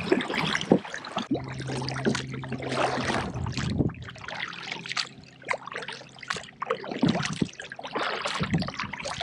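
A kayak being rowed across a lake: the blades dip and splash in uneven strokes and water trickles off them. About a second in, a low steady hum starts and stops a couple of seconds later.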